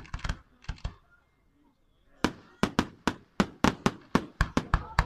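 Aerial firework shells bursting in sharp bangs: a few reports in the first second, a pause of about a second, then a fast run of about a dozen bangs, several a second.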